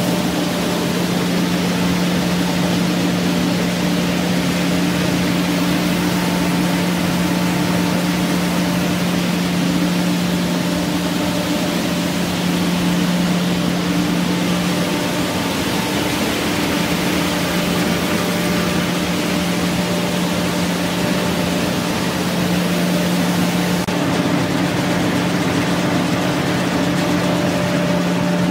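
Peanut shelling and grading line running: a steady low machine hum under an even rushing noise from the vibrating grading screens and conveyors.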